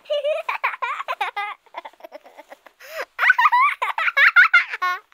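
High-pitched, voice-like giggling laughter in short bursts, quieter in the middle and louder in the second half.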